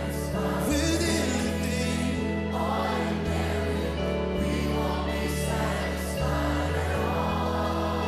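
Live worship band playing slow, held keyboard and bass chords with cymbal swells, and many voices singing along.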